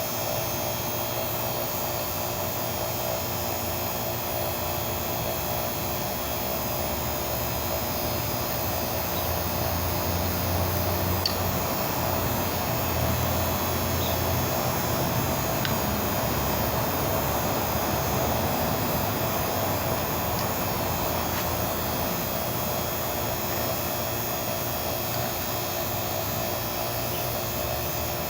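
Refrigeration vacuum pump running steadily, evacuating a repaired air-conditioner system after a compressor replacement.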